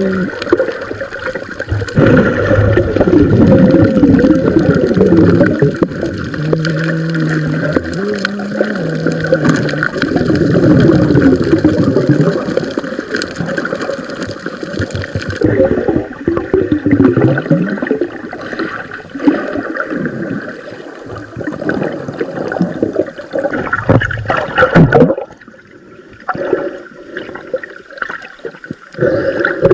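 Water gurgling and bubbling close to the microphone, loud and churning for most of the stretch, then quieter and patchier in the last few seconds.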